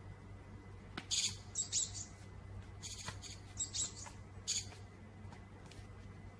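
High bird-like chirps in about five short bursts, roughly a second apart, each near a light tap, then they stop about five seconds in.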